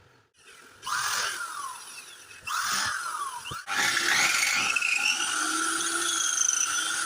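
Forte wall chaser's electric motor switched on twice briefly, each time whining up and then winding down, then switched on a third time and left running steadily with a high whine.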